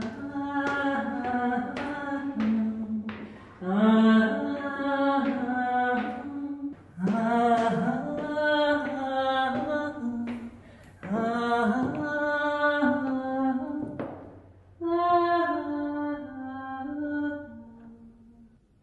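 A single voice singing unaccompanied: slow, sustained notes in five phrases with short breaks between them, the last one fading out near the end.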